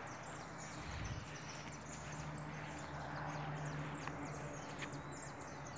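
Faint outdoor ambience of many short, high chirps from small birds, over a steady low hum that comes in about a second in.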